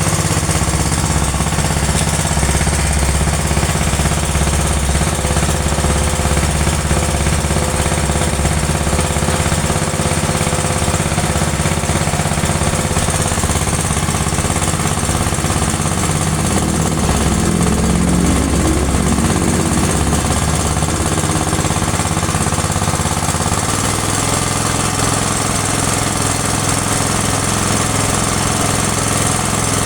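A car-wash high-pressure washer machine running steadily with a rhythmic mechanical hum; its tone shifts about 24 seconds in.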